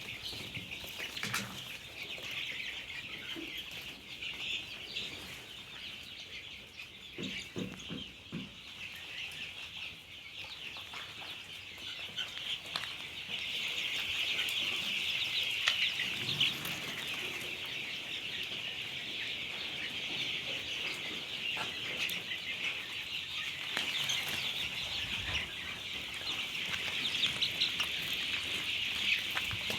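A large flock of desi chickens in a poultry shed, many birds calling and clucking at once in a dense, continuous chatter that grows louder about halfway through.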